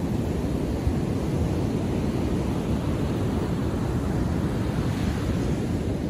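Ocean surf breaking and washing up a sandy beach, with a low rumble of wind on the microphone; the hiss of a wave swells from about two seconds in and is loudest near the end.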